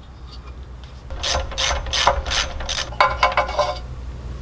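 Hand socket ratchet clicking while the spark plug is backed out of a Predator 301cc engine's cylinder head. About a second in there are five even ratcheting strokes, then a quicker run of clicks.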